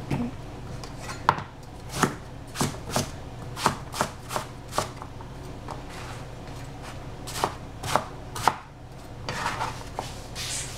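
Knife chopping vegetables on a cutting board: single, irregularly spaced cuts, each a sharp knock on the board, roughly one to two a second. Near the end the cutting gives way to a brief rustle of handling the pieces.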